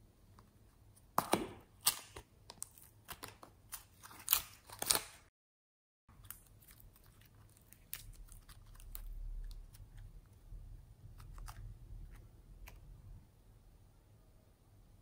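A hard plastic toy case handled close to the microphone gives a quick run of sharp clicks and crackles. After a short cut to silence come softer scattered crackles over a low rumble as fingers squeeze soft clay.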